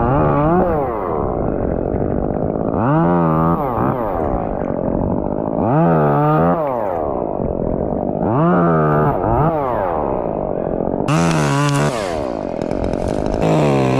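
Chainsaw revving up and dropping back about every three seconds, cutting sections from a pine tree.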